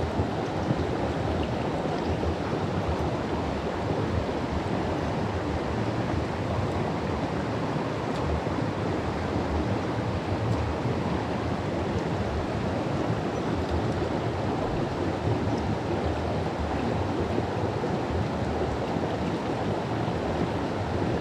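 Steady rushing of a mountain stream's flowing water, an even noise that stays level throughout.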